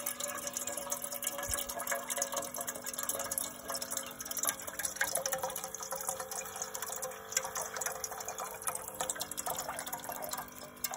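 Battery-powered water dispenser pump on a jerry can running with a steady hum while its spout pours a stream of water into a metal cooking pot, splashing as the pot fills. The pump stops about a second after the end.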